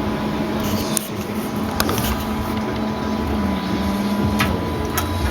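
Several computer case fans running together in a modified workstation: a steady whirring hum with a faint tone, and a few light clicks.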